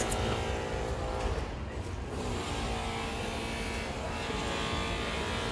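Construction drill running steadily, a continuous drone with no breaks.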